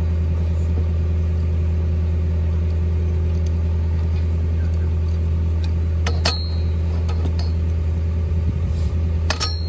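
Engine of the hydraulic power supply for a pipe-ramming drill running with a steady low hum. Two sharp metallic clinks with a brief ring, about six seconds in and again near the end.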